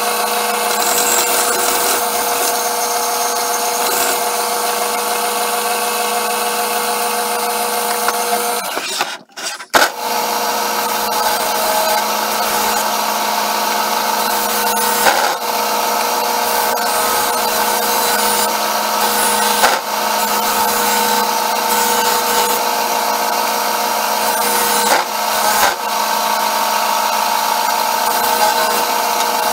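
Combination belt-and-disc sander running with a steady hum, its abrasive rubbing on the edge of a round wooden piece pressed against it. The sound drops out sharply for a moment about nine seconds in.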